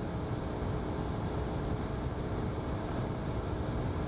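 Single-engine Cessna's piston engine and propeller droning steadily inside the cockpit, with a few steady low tones over the noise.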